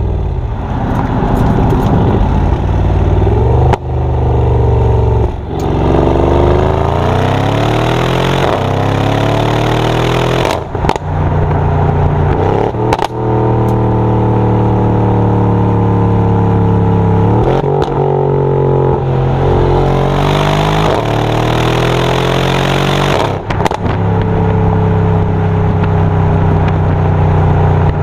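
Mercedes-AMG GLE 63 S Coupé's 5.5-litre biturbo V8 exhaust under acceleration. The engine note rises and falls in pitch again and again, broken every few seconds by a brief dip with a sharp crack.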